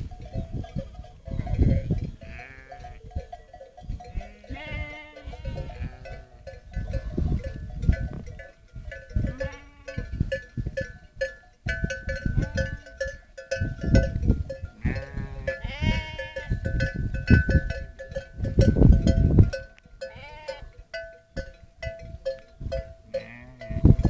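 A flock of sheep bleating repeatedly, several animals calling in turn, some deep and some higher-pitched, against bursts of low rumble.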